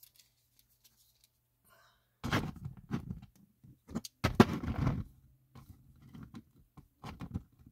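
Plastic NECA action figure being handled and set down on a display shelf: clusters of light knocks, clicks and scrapes starting about two seconds in.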